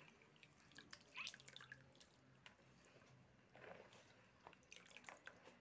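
Near silence: room tone with a few faint short taps and soft wet sounds, the clearest about a second in.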